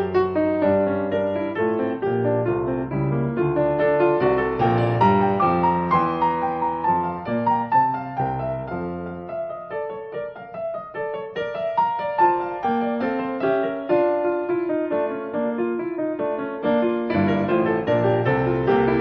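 Background piano music, slow and melodic; the low bass notes drop out for several seconds in the middle and return near the end.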